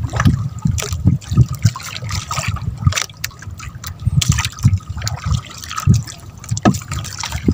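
Water splashing and trickling in irregular bursts, with soft low knocks.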